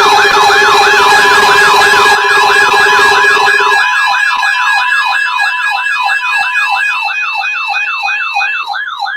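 Electronic siren-like alert tone: a fast, repeating pitch sweep, several sweeps a second, over a few steady tones. A lower steady tone drops out about four seconds in, and the sound fades over the last few seconds before cutting off.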